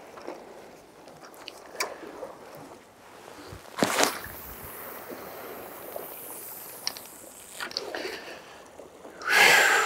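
A long shore-jigging cast with a heavy spinning rod: a sharp swish of the rod about four seconds in, then the hiss of line paying out off the spinning reel through the guides, fading over about three seconds. Near the end comes a loud rush of noise.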